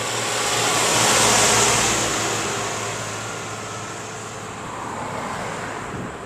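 A road vehicle passing close by, its tyre and engine noise swelling to a peak about a second in and then fading away, with a smaller second swell near the end.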